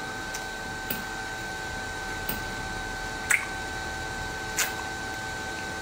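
Soft wet smacks of a kiss, a handful of short isolated ones spaced about a second apart, over quiet room tone with a steady faint electronic whine.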